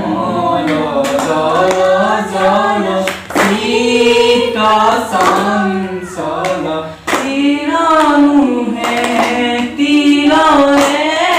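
A mixed group of men's and women's voices singing an Assamese devotional hymn together, unaccompanied, in long phrases with short breaks between them.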